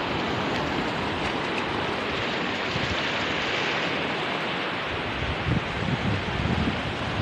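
Sea surf washing on the shore in a steady rush, with wind buffeting the microphone in uneven gusts during the last couple of seconds.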